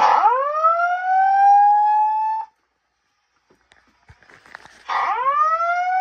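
Slow whoop evacuation tone from a voice-evac fire alarm system's speakers, played from a Simplex 4003 message recording. Two whoops sound: each rises in pitch for about two and a half seconds and cuts off, and the second starts about five seconds in.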